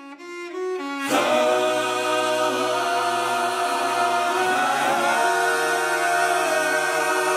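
Orchestral-and-choral intro of a musical-theatre song: a short repeated figure, then about a second in a full chord swells in and holds, with wordless choir voices singing over the accompaniment.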